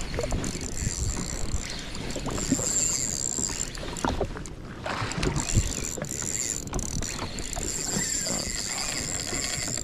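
Water lapping and slapping against a drifting jet ski's hull, with scattered knocks and wind on the microphone.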